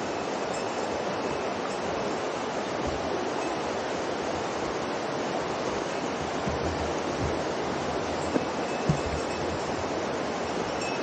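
Steady rushing of a mountain river flowing close by. A few soft thuds and two short, sharp knocks about half a second apart come about two-thirds of the way through.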